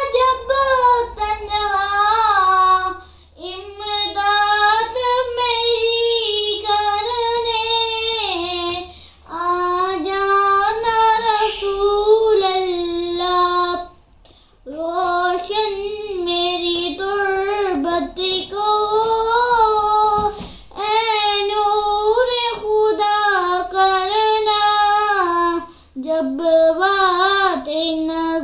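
A boy singing an Urdu naat unaccompanied: a slow devotional melody in long, held, ornamented notes, phrase after phrase, with short breaths between phrases.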